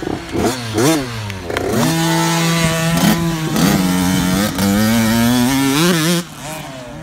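Small green Kawasaki kids' dirt bike engine revving up and down through the gears, then running loud and steady at high revs with a slowly rising pitch as it passes close by. The sound drops away sharply about six seconds in as the bike moves off.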